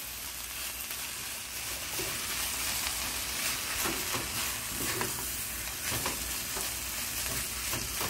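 Shredded chicken filling with hearts of palm sizzling as it is sautéed in a pot, stirred with a wooden spoon that scrapes against the pot now and then.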